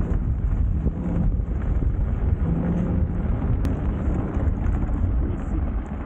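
Steady low rumble of wind buffeting the microphone, mixed with the fat tyres of a moving electric bike rolling over packed snow.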